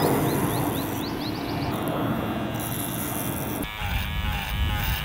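Electric hair clippers buzzing steadily as they cut hair. The buzz is rough and grainy for about the first three and a half seconds, then turns smoother.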